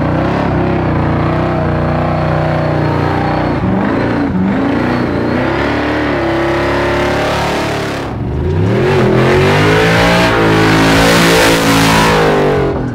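Engine of a custom Chevrolet C10 pickup held at high revs through a burnout, the rear tyres spinning and squealing. About 8 seconds in the revs drop, then climb hard again, and the tyre screech is loudest near the end.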